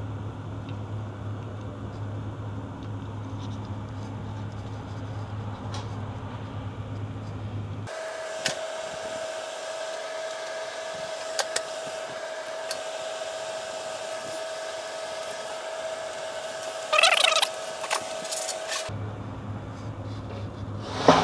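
Hand tools clicking and rattling against metal engine parts during reassembly, over a steady workshop hum. There are a few single clicks, a short loud metallic rattle about three-quarters of the way in, and another clatter at the very end. The background hum switches abruptly to a higher steady whine a third of the way in and back again near the end.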